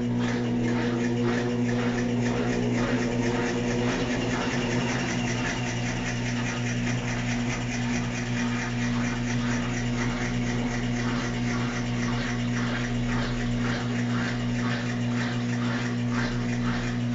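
Brastemp Ative 11 kg top-loading washing machine running its spin test with the brake band removed: a steady motor hum under a regular swishing of the drum and water, about three times a second.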